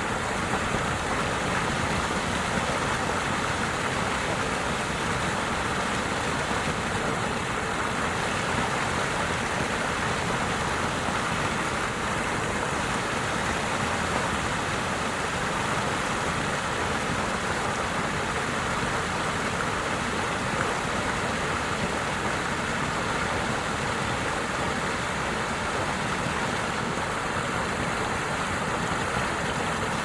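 Small creek waterfall pouring into a pool: a steady rushing and splashing of falling water.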